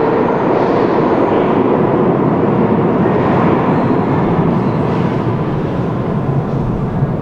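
Moscow Metro train running through the station: a steady rumble with a faint motor whine, easing off slightly near the end.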